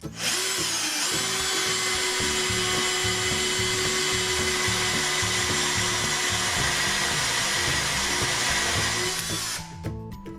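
Parkside PBSA 12 B1 12-volt cordless drill drilling with a 10 mm bit, the chuck's maximum size. Its motor whine rises as it spins up just after the start, holds steady, and falls away about a second before the end as it stops. Background music with a steady beat plays underneath.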